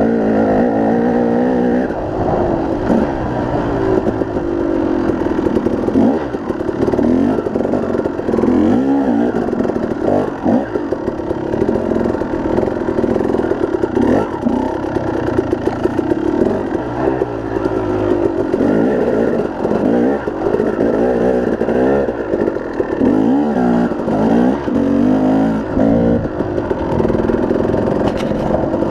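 KTM 250 two-stroke dirt bike engine revving up and down as the bike is ridden along a rough forest trail, with knocks and rattles from the bike over the ground.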